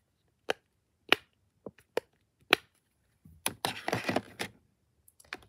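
Silicone simple-dimple fidget toy bubbles being pressed, about five sharp pops in the first two and a half seconds, followed by a burst of rustling and clatter as plastic toys in the bin are handled.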